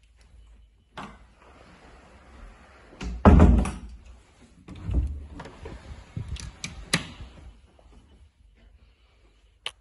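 Wooden interior doors being handled: a heavy thud about three seconds in, then lighter knocks and clicks of handles and latches.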